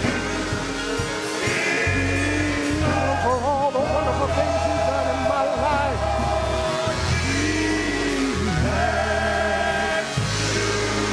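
Gospel praise music: voices singing with bending, ornamented runs over a band, with long held bass notes that shift every second or two.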